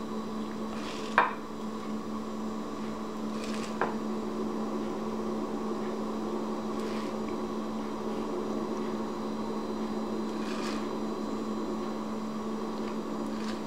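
Hands pressing sticky marshmallow-coated chocolate rice cereal into a glass baking dish: faint soft rubbing and crackling, with a couple of light taps. A steady electrical hum runs underneath and is the loudest thing.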